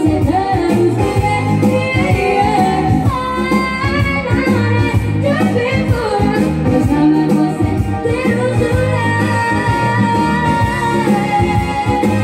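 Live music from an electronic keyboard with a voice singing over it in long, sliding held notes.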